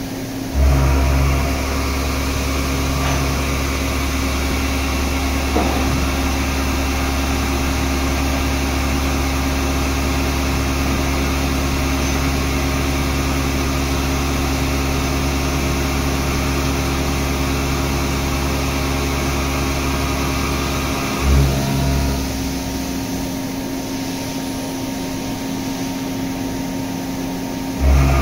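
CNC machining centre shoulder-milling hardened 1.2343 tool steel (43–46 HRC) with a Ø50-class indexable shoulder end mill at 830 rpm, cut dry with an air blast: a steady, loud cutting and spindle noise with a low hum. It surges about a second in, surges again briefly about 21 s in, and runs quieter for the last several seconds.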